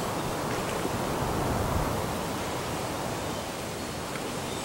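Steady rushing of hurricane wind and rain, an even hiss with no separate events.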